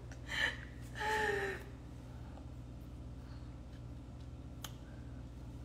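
A woman's breathy sighs: a short exhale at the start, then a longer sigh with a falling voice about a second in, over a steady low hum. A faint click comes near the end.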